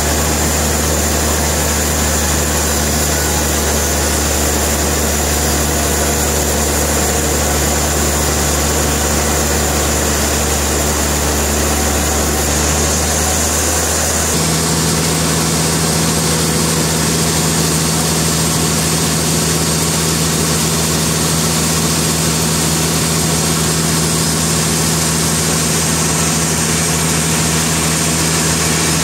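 Sawmill machinery engine running steadily, with its note changing abruptly about halfway through.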